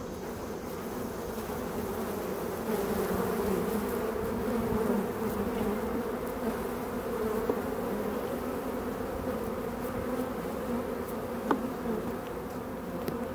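Honeybee colony buzzing, a steady hum, a little louder a few seconds in; a faint click near the end.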